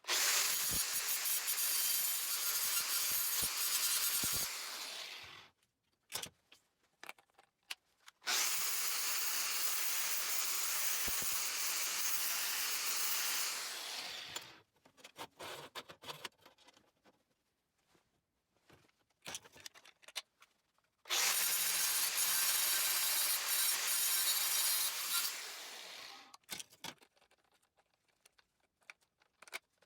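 Angle grinder with a grinding disc grinding down steel weld beads, in three runs of about five to six seconds each that tail off as the grinder is let off. Short clicks and knocks fall in the quiet gaps between runs.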